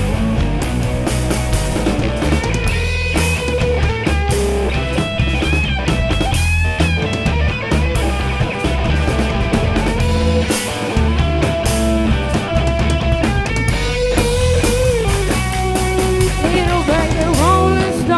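Live rock band playing an instrumental break, with guitar lines over drum kit and steady low notes.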